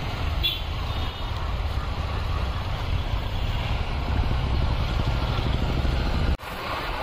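Motorcycle engine and wind rumble from a bike riding in town traffic, steady and low, cutting off abruptly about six seconds in.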